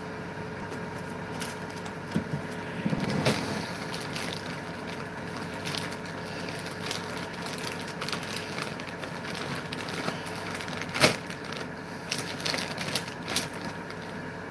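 Scattered clicks and knocks of objects being handled on a desk, over a steady hum.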